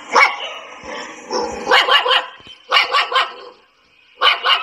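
A dog barking repeatedly in quick runs of two or three barks.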